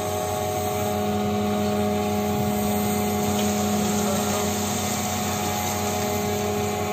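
Steady machinery hum of the ship's crane and Orts electro-hydraulic grab as the closed grab, full of coal, is hoisted, with a strong low tone and several fainter higher tones. The grab is now holding closed with full power after its repair.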